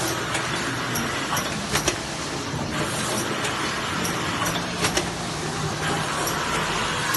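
Automatic hardcover book case-making machine running: a steady mechanical hum with sharp clacks at irregular intervals, a few times over the span.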